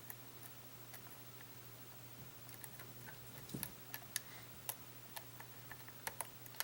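Small, irregular clicks and ticks of a lock pick and tension wrench working the pins of a pin tumbler lock during single-pin picking, coming more often from about halfway through, over a faint steady low hum.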